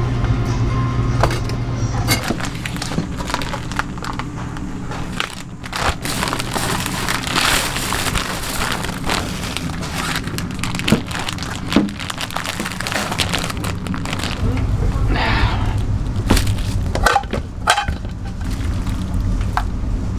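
Kitchen work at a fried-chicken shop: scattered sharp knocks and cracks with some crinkling, over a steady low hum that drops away early and returns about two thirds of the way in.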